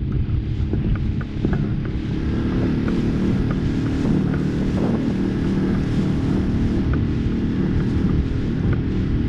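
Small Suzuki outboard motor on an inflatable boat running steadily at cruising speed, with wind buffeting the microphone and water rushing past the hull.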